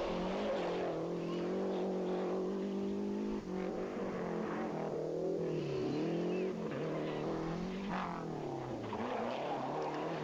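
Rally car engine running hard, its note rising and falling repeatedly as it revs, lifts and shifts through corners.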